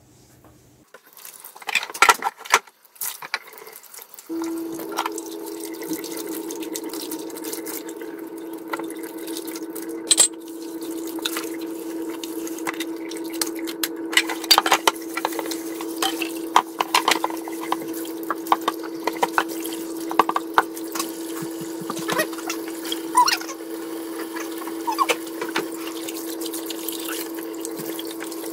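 Dishwashing at a kitchen sink: a few loud clatters early on, then about four seconds in the tap is turned on and runs steadily into the sink with a hiss and a steady hum, while cutlery and plates clink as they are rinsed and scrubbed with a sponge.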